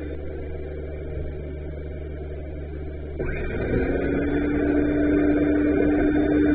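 Yanmar SA324 compact tractor's diesel engine running steadily. About three seconds in it gets louder and a steady higher-pitched tone joins in.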